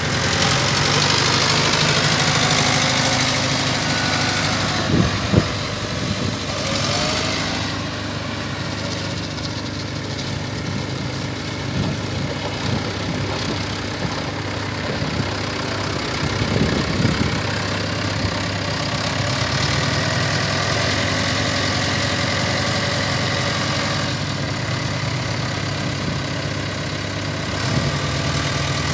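McCormick CX105 tractor's four-cylinder diesel engine running steadily at low revs as the tractor is driven slowly, with a few short knocks about five seconds in and again past the middle.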